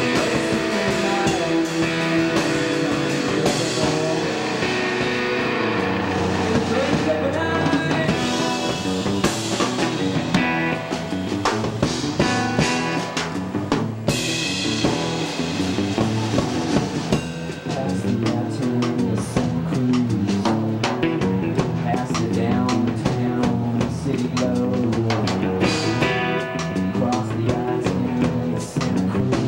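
A rock band playing live: strummed hollow-body electric guitar over a full drum kit, continuing without a break.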